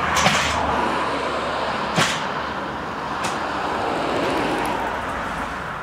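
Steady road noise of passing traffic, with a few sharp knocks, the loudest about two seconds in.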